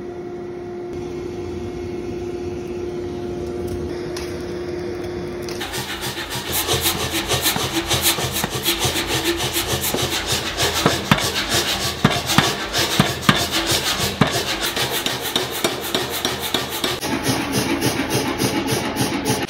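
Steady hum of a forge for about five seconds, then a mechanical power hammer striking hot steel in a fast, continuous run of blows.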